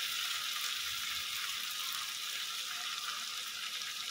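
Oil sizzling steadily in a kadai as potatoes, onion paste and freshly added poppy-seed and chilli paste fry in it: the masala being sautéed.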